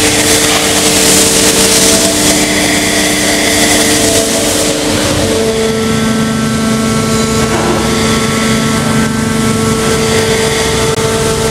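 Injection moulding machine running: a steady mechanical drone with hiss and several held tones, whose pitch shifts about five seconds in.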